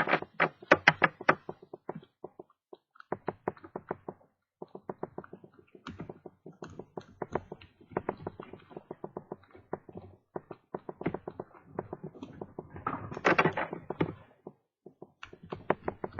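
A lock pick raking inside a Master Lock No. 575 padlock's pin cylinder, a quick run of small metallic clicks and taps with short pauses and a denser flurry about thirteen seconds in. The pick is being raked over the back pins to bounce them out of a false set.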